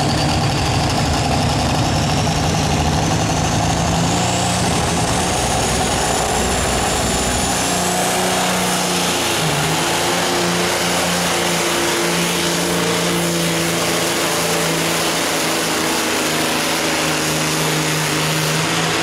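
Pro stock semi truck's diesel engine running hard under load as it pulls a weight-transfer sled, with a high whine that rises slowly in pitch. The deep low end of the engine sound drops away about eight seconds in.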